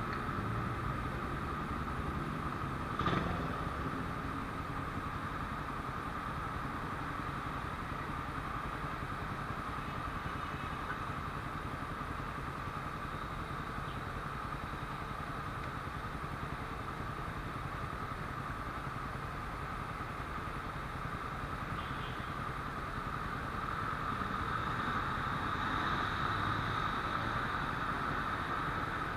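Motorcycle engine running amid steady street traffic noise, with a single sharp click about three seconds in.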